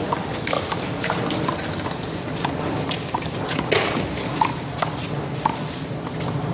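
One-wall handball rally: the small rubber ball slapped by hand and smacking off the wall and ground in irregular sharp hits, with a few short high squeaks. A steady low hum runs underneath.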